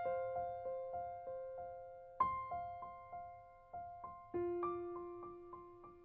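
Background music: a piano playing a gentle run of repeated single notes, about three a second. A fuller chord is struck roughly every two seconds and each note rings and fades.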